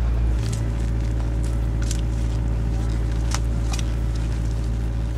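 Steady low hum of a running engine, with a few short sharp clicks scattered through.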